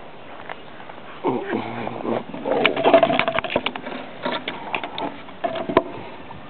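A dog grumbling in short pitched bouts from about a second in, with sharp clicks and taps among them.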